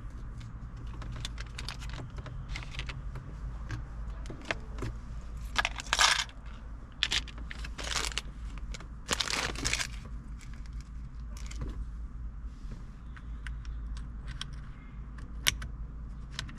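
Small plastic climate control button caps clicking and clattering as they are handled and fitted, with a few longer rustling scrapes near the middle.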